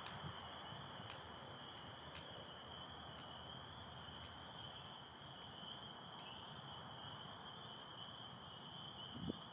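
Chorus of spring peepers, a steady high-pitched peeping blended into one continuous band of sound. A few faint clicks come through, and there is a soft low knock near the end.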